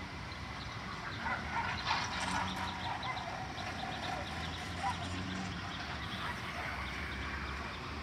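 Animal calls: a run of short, quickly repeated high cries that starts about a second in and fades out by about five and a half seconds, over a steady low hum.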